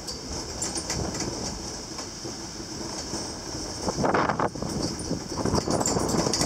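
Gelmerbahn funicular car rattling and creaking on its steep track as it descends, with a steady running noise and louder clattering about four seconds in and again near the end.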